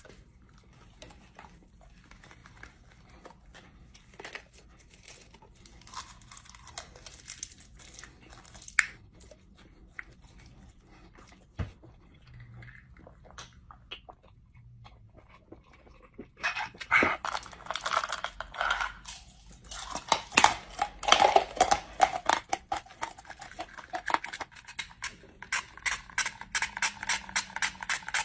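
Scattered soft clicks and rustling of food packaging being handled, then, about 16 seconds in, loud rapid crunching of frozen food being chewed.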